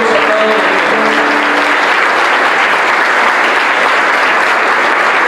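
A congregation clapping, a dense steady applause. A few held pitched tones fade out under it in the first two seconds.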